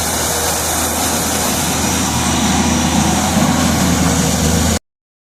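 Tata Hitachi 210 excavator's 5.9-litre six-cylinder Cummins engine running steadily, growing a little louder around the middle, then cutting off suddenly near the end.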